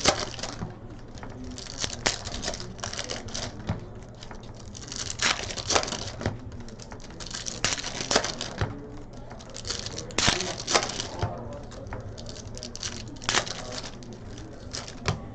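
Foil trading-card packs being torn open and handled: wrappers crinkling and tearing in short, irregular bursts.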